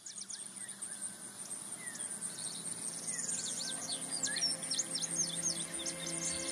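Many rapid high chirps and gliding whistles over a steady high hiss, some sweeping downward. Music with long held tones fades in under them during the second half.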